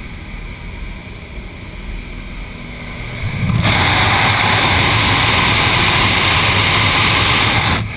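Light aircraft engine droning in the cabin with the jump door open; about three and a half seconds in, a loud steady wind rush as the microphone is pushed out into the slipstream, cutting off abruptly near the end.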